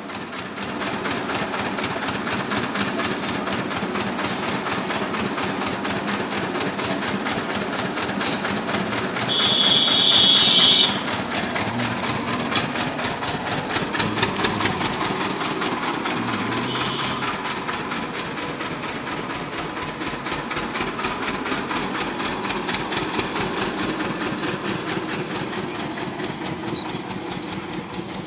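Heavy stone potter's wheel spinning on its pivot after being turned by a stick, giving a steady rumble with rapid even ticking that fades slightly toward the end. A brief high-pitched sound rises over it about nine seconds in.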